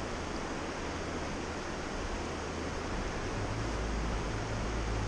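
Steady rush of a fast freestone river running over rocks. A low rumble rises about three seconds in.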